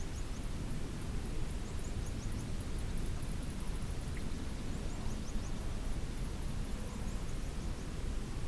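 Outdoor ambience: a steady low rumble, with clusters of small high chirps recurring every second or two.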